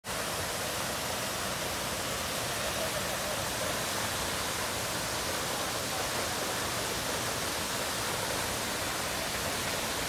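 Waterfall: a tall, narrow fall of water splashing onto rocks, a steady, even rush.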